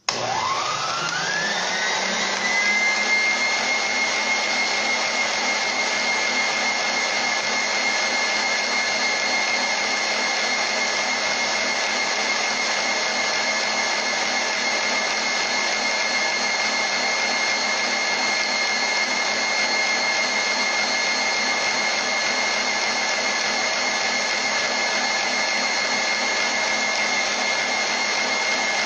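Electric kitchen mixer switched on, its motor whine rising in pitch over the first couple of seconds as it spins up, then running steadily at constant speed.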